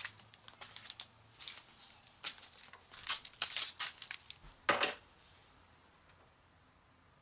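Irregular clicks, rattles and rustles of something being handled, busiest in the middle and loudest about five seconds in, then dying away to quiet.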